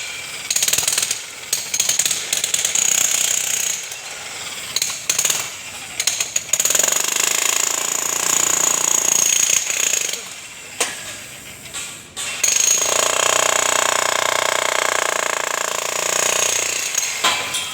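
Makita electric demolition hammer running in long bursts, chiselling into a concrete column, with a few short breaks between runs.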